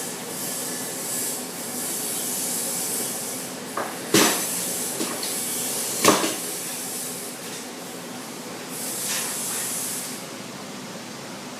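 Tin snips cutting a long straight line through thin sheet-metal plaster ground, a steady high, scratchy hiss of metal being sheared, with two sharp metallic clacks about four and six seconds in.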